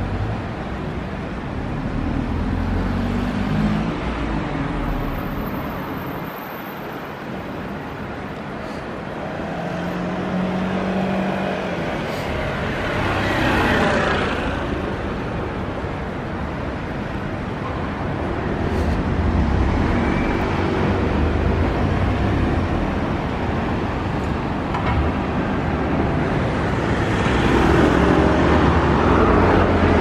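City street traffic: cars and taxis running and driving by on the road, with one vehicle passing close about halfway through.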